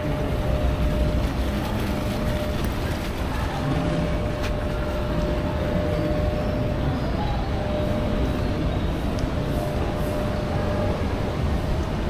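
Steady background noise, a low rumble with a hiss above it and a faint steady hum, with no distinct event standing out.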